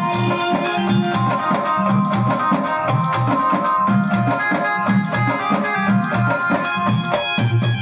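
Music played through a small home theatre speaker system, with a steady beat of bass pulses under plucked-string and other instrument lines.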